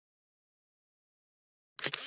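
Dead silence, then near the end a brief burst of scraping noise with a few sharp clicks, lasting about half a second.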